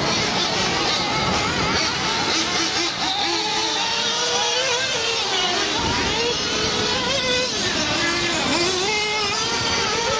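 Small nitro glow engines of 1/8-scale radio-controlled off-road cars racing, their high-pitched whine rising and falling over and over as the throttle is opened and closed.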